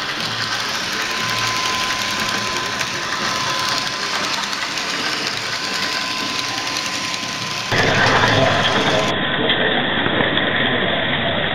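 Model electric locomotive, a replica of an FS E 431 three-phase engine, running along the layout track: a steady running noise with a thin steady whine. About eight seconds in the sound jumps to a louder, rougher rolling rumble of wheels and motor, picked up by a small camera riding on the train.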